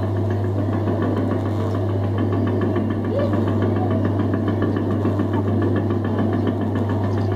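Fun 2 Learn boat kiddie ride's electric drive motor and rocking mechanism running mid-ride: a steady low hum with a fast, even mechanical rattle.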